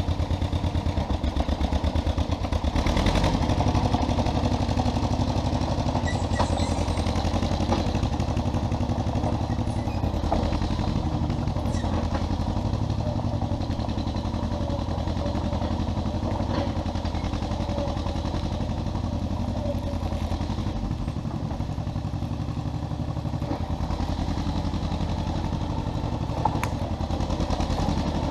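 1957 John Deere 420 crawler bulldozer's two-cylinder gas engine running steadily at working speed while leveling dirt, with a few short metallic clanks.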